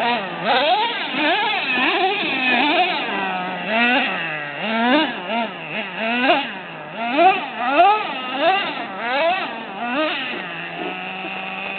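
Small nitro engine of a Traxxas Revo RC truck revving up and down over and over, a few blips a second. It settles to a steady idle near the end.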